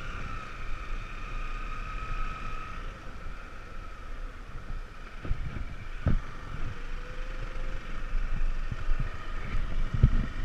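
Motorcycle being ridden along a street, its engine running under wind noise on the microphone, with a couple of sharp knocks about six and ten seconds in.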